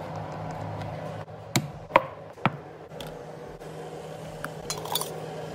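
A few sharp knocks and clicks, like objects being handled and set down, over a steady low hum. The loudest comes about two seconds in, and there is a quick cluster near the end.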